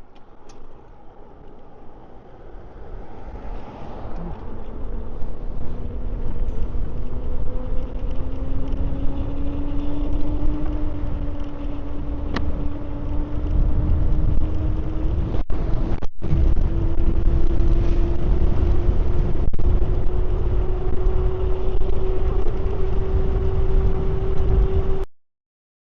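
Electric e-bike (e-moto) riding, its motor whine climbing slowly and steadily in pitch as it gathers speed, over heavy wind rumble on the microphone. The sound cuts off suddenly near the end.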